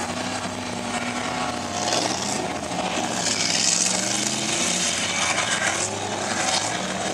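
Engine of a 4x4 running and revving, its pitch slowly rising and falling, with waves of rushing hiss.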